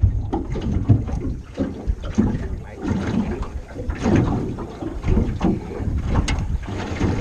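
Wind buffeting the microphone in an irregular low rumble, with water lapping against the hull of a small aluminium boat.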